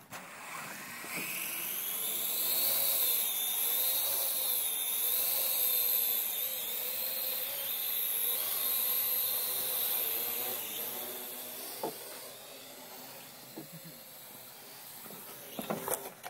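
Parrot AR.Drone quadcopter's electric rotors spinning up for take-off, rising in pitch over the first couple of seconds, then a steady high whine that wavers in pitch as it flies, growing fainter through the second half.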